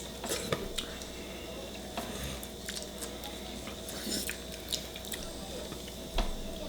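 Eating sounds: chewing and mouth noises from a meal of chicken feet and dumplings, with a few scattered sharp clicks of tableware.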